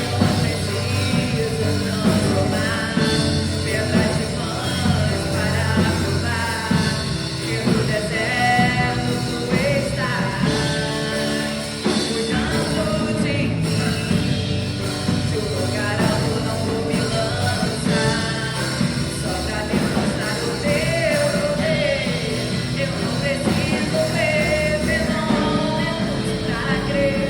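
Live worship band music with singing: a voice carrying a melody over a full band with a steady low end.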